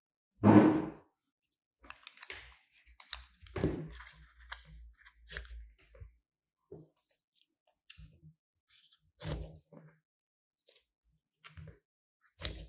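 Steel scissors snipping shiny paper into small squares, with the rustle and light clatter of the cut pieces being handled on a wooden table. A loud rustling thump comes about half a second in, and a sharp snip near the end.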